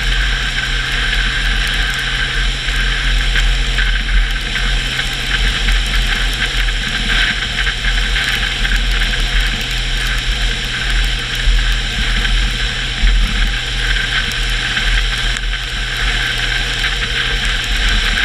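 Car engine running steadily in one gear over a heavy low road rumble and a steady hiss from tyres on a wet road. The engine note drops slightly near the end.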